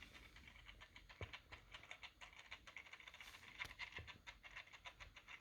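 Faint, irregular light clicks and rustles of hands handling boxes and packaging.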